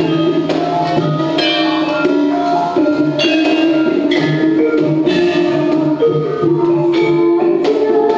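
Javanese gamelan ensemble playing: struck bronze metallophones ringing in a steady beat, with a girl's voice singing through a microphone and loudspeaker.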